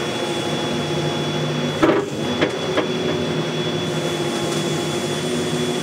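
Volvo excavator's engine and hydraulics running steadily, heard from inside the cab while the bucket is moved, with a steady hum and a short knock and a couple of faint clicks about two seconds in.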